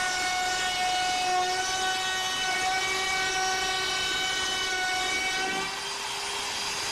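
CNC router spindle whining steadily at high speed as its bit cuts a pocket into a board. About five to six seconds in, the cut ends and the whine drops away with a short falling sweep, leaving a thinner high tone.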